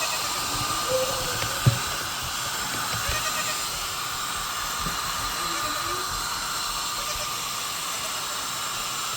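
Hair dryer blowing steadily with a thin whine, with one sharp knock about a second and a half in.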